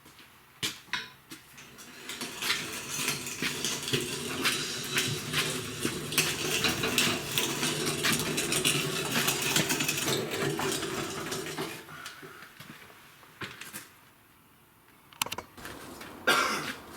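Wheeled oil pump cart rattling and clattering as it is dragged across the floor for about ten seconds, then a few knocks near the end.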